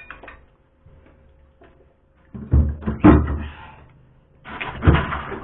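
Hammer knocking and chipping at thick ice inside a freezer being defrosted, with clattering ice. There are faint clicks at first, then loud knocks in the second half.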